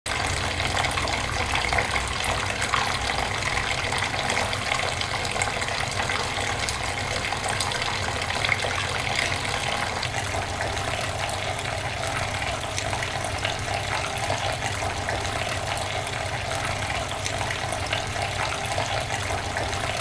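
Tabletop fountain water falling in thin streams from three spouts and splashing steadily into its basin.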